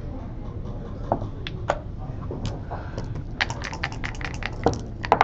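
Backgammon checkers and dice clicking on the board: scattered single clacks, then a fast rattle of about ten clicks a little over three seconds in as dice are shaken in a cup, and a few more clacks near the end.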